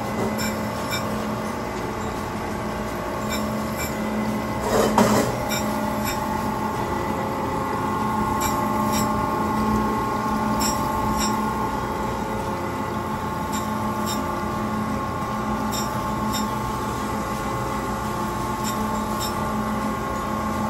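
Surface grinder running, its abrasive wheel grinding a steel differential shim on the magnetic chuck. A steady hum and whine with faint repeated ticks, and a brief louder burst about five seconds in.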